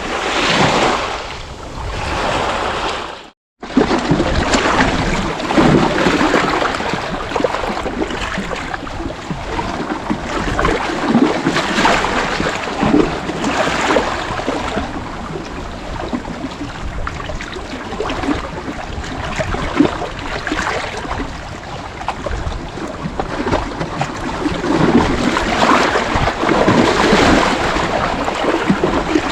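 Sea waves washing and breaking in repeated swells that rise and fall every few seconds. The sound cuts out completely for a moment a little over three seconds in, then resumes.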